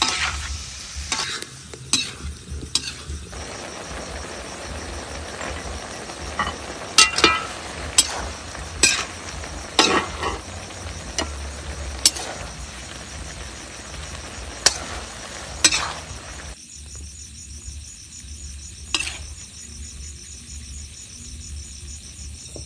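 Pork intestine and pickled mustard greens sizzling in a metal wok while a metal spatula stirs them, clanking and scraping against the pan every second or so. About three-quarters of the way through, the sizzling stops and a steady high insect chirring is left.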